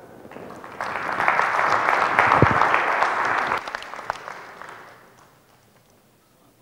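Audience applause that swells about a second in and dies away a few seconds later.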